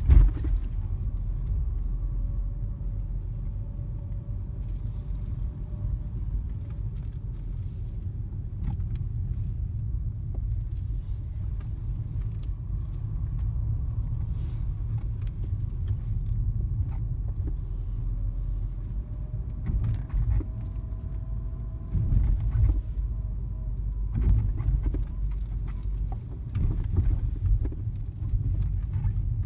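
Steady low rumble of a car's engine and tyres heard from inside the cabin at low speed, with a sharp knock right at the start and a few bumps in the second half.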